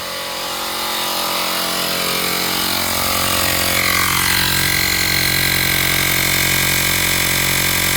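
Cheap 12-volt portable air compressor running steadily, its electric motor and piston pump making an even mechanical drone that builds over the first second or so. A higher whine joins in about four seconds in.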